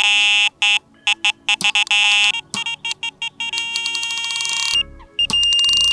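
Wolf Icon Q carp bite alarm sounding a take: a string of electronic beeps that quickens into a near-continuous run, then, after a short break near the end, one steady high tone. This is the alarm signalling line being pulled through it by a running fish, here a staged take.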